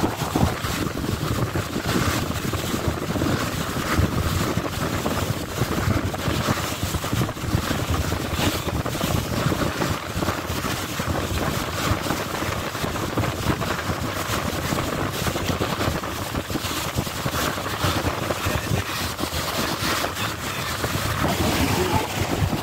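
Wind buffeting the microphone on the open deck of a moving boat, over the wash of water along the hull and the boat's running noise.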